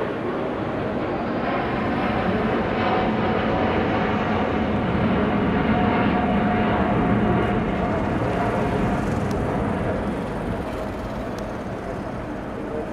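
Jet noise from the Airbus A330neo's two Rolls-Royce Trent 7000 turbofans as the airliner flies past in a steep bank. A faint steady whine runs through it. The sound swells to its loudest around the middle and fades as the aircraft turns away.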